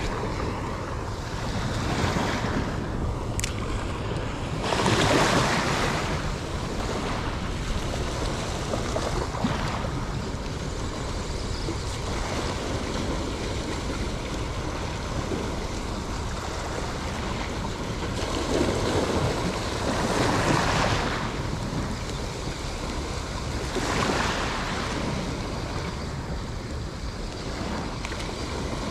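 Small sea waves washing in over a shallow sandbar, a steady hiss that swells into a surge every few seconds, with wind on the microphone.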